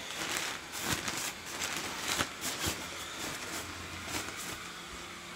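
Rustling and irregular knocks from handling close to the nylon fabric of an inflatable yard figure, over the low hum of its built-in blower fan. The fan hum becomes steadier and clearer near the end.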